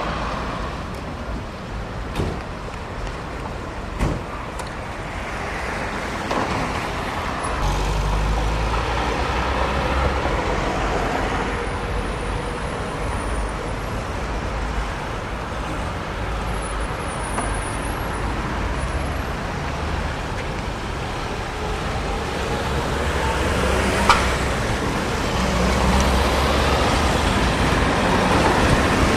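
Street traffic with cars and trucks passing, and an ex-Dresden Tatra tram rumbling by close near the end. There are a few sharp clacks, at about 2 s, 4 s and 24 s.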